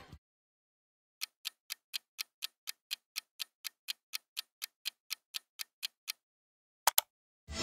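Clock-ticking sound effect for a countdown timer: even ticks about four a second for around five seconds, ending in a quick double click.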